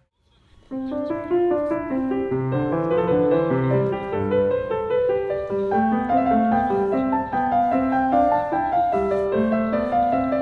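Background piano music, a brief silence at the very start and then a gentle run of notes.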